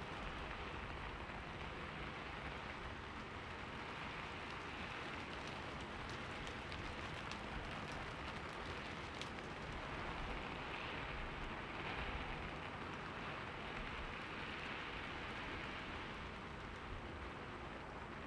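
Steady rainfall, a continuous even hiss of rain with scattered drop ticks.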